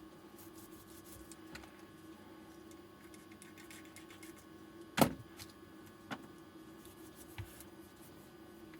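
Small clicks and taps of hands handling parts on a workbench over a steady low hum, with one sharp knock about five seconds in and two lighter ones after it.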